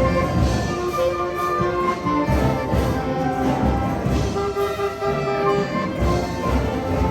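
School wind band playing: brass and woodwinds holding sustained notes over a steady drum beat.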